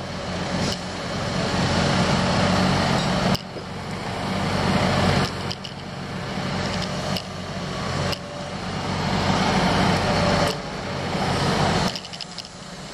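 Heavy construction machine's diesel engine running steadily under a wash of noise, with the level dropping abruptly several times.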